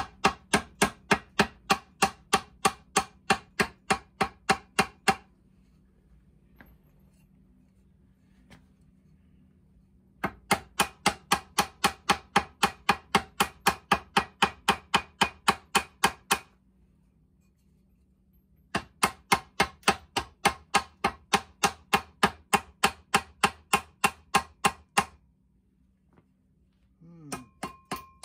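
Rubber mallet rapidly tapping a seized, corroded outboard propeller to knock it loose from the shaft: three long runs of about three blows a second with pauses between. Near the end the blows are lighter and a faint ringing tone comes in.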